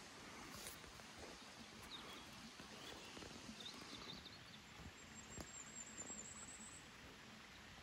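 Near silence: faint outdoor background with a few soft, high chirps.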